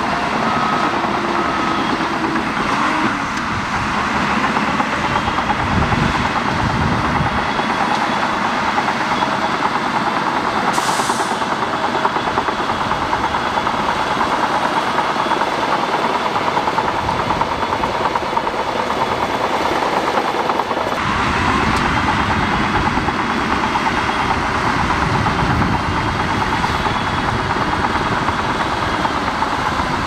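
Shantui crawler bulldozer working: its diesel engine runs steadily under load while the steel tracks clatter as it pushes soil. The sound changes abruptly about two-thirds of the way through.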